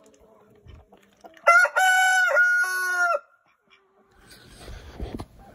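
A rooster crowing once, a full cock-a-doodle-doo of several syllables lasting under two seconds, starting about a second and a half in. A softer rushing noise follows near the end.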